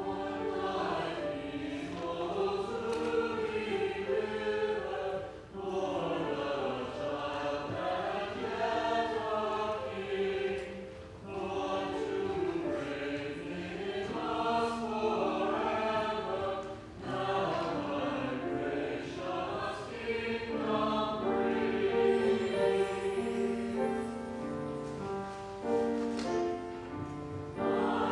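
Mixed church choir singing in harmony, in phrases of about five or six seconds with short breaks between them.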